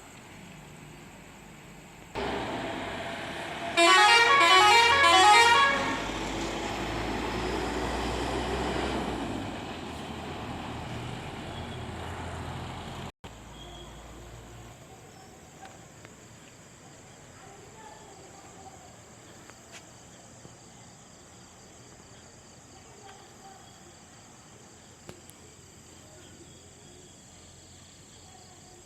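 A private bus's engine and road noise come up about two seconds in. The bus's multi-tone horn then sounds a quick run of stepped notes for about two seconds, the loudest thing heard. The bus noise carries on and stops abruptly about halfway through, leaving only a faint background with small ticks.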